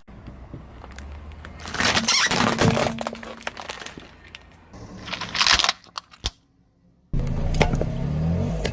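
A car's tyres rolling over objects and crushing them, with cracking and crunching in several bursts, sharp cracks, and the car's engine running low underneath.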